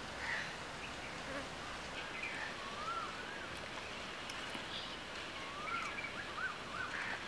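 Quiet outdoor ambience: a steady hiss with a few faint bird calls, short whistles that rise and fall, about three seconds in and again about six seconds in.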